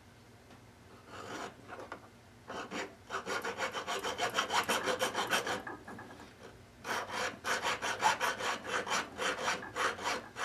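Hand file scraping across the end of a small metal jewellery piece held in a filing jig, in quick back-and-forth strokes: two runs with a short pause between. The end is being filed square until the black marker ink on it is gone.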